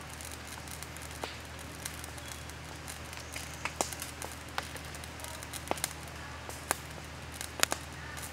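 Wood embers crackling with irregular sharp pops as an octopus on a bamboo skewer grills over them.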